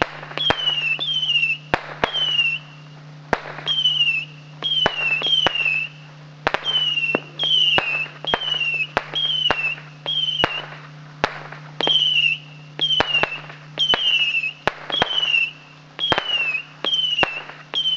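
Shogun 100-shot Saturn missile battery firing in quick succession. Each missile gives a short screaming whistle that falls in pitch and ends in a sharp firecracker crack, more than one a second, in runs with brief gaps.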